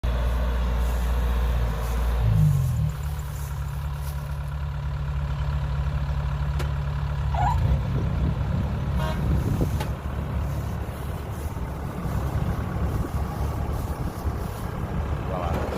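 Kubota DC60 combine harvester's diesel engine running steadily, its note shifting briefly about two and a half seconds in.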